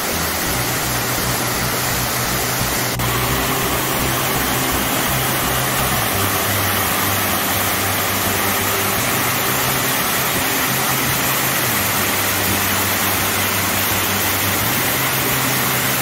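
Waterfall pouring steadily, heard close up from the foot of the falls: a loud, even rush of falling water.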